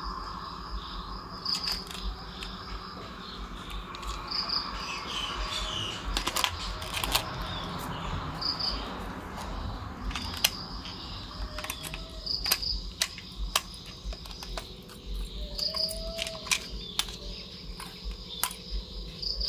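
Sharp plastic clicks and rattles as AA batteries are fitted into a toy remote control's battery compartment and its cover is snapped shut. Crickets chirp steadily in the background.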